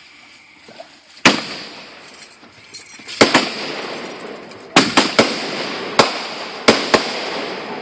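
Fireworks going off: a string of sharp bangs, the first about a second in and the rest coming singly and in quick pairs, each followed by a hissing, crackling decay.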